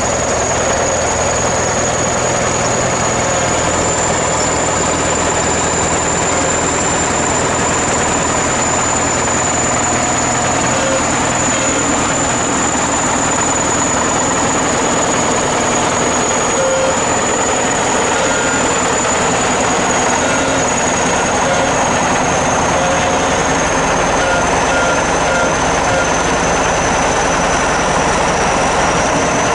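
ChTZ T-170 bulldozer's diesel engine running steadily, with a thin high whine above it that wavers slightly in pitch.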